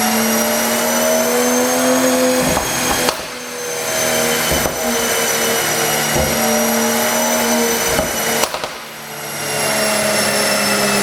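Mercedes-AMG CLS53's 3.0-litre turbocharged inline-six held at raised revs, dropping off twice, each time after a few sharp pops. The pops come from an ECU tune for exhaust pops on lift-off.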